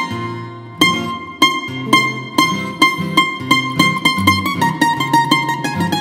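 Greek bouzouki playing a solo taximi, a free improvisation in C hitzaz, picked note by note over low bass notes. A note rings out and fades for most of a second at the start before the picking resumes.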